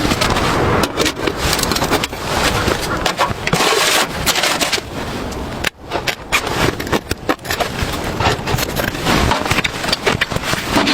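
Dense scraping and clicking handling noises from tent setup in snow, with a short break about six seconds in.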